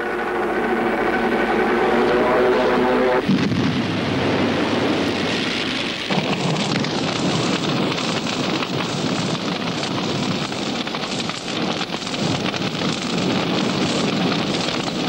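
A steady aircraft engine drone for about three seconds. It cuts off suddenly into a loud, dense rushing noise with a fine crackle, like a crash or explosion followed by burning, which carries on from there.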